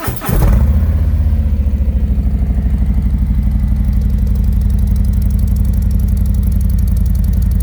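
A Harley-Davidson Road Glide's Milwaukee-Eight V-twin catches from the starter and settles into a steady idle with an even pulsing beat. It runs loud through slip-on mufflers whose baffles have been wrapped with tape only down the middle.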